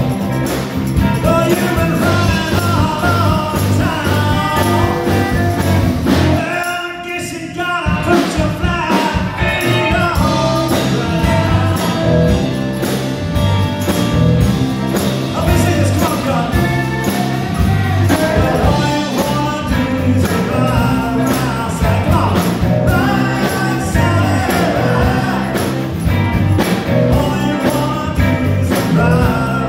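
Live bar band playing rock-and-soul, a man singing lead over electric guitars, bass and drums. About seven seconds in the band drops out for a brief break while the voice carries on, then comes back in.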